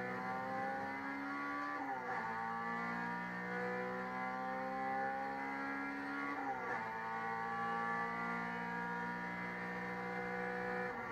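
Race car engine heard from inside the cabin, pulling hard with its pitch climbing steadily through each gear. The pitch drops sharply about two seconds in, again about six and a half seconds in, and once more at the end, as at upshifts under full acceleration.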